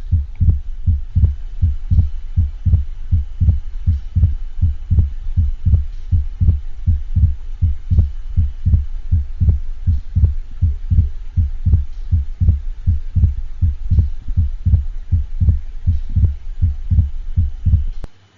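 Heart sounds played back as a steady train of low thumps, with the second heart sound split and the split fixed. This fixed splitting of S2 is the finding that may be heard with an atrial septal defect or pulmonary hypertension. The beats stop abruptly near the end.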